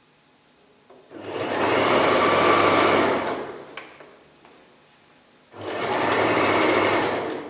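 Domestic electric sewing machine stitching a seam in black jacket fabric, in two runs of about two seconds each with a pause between them.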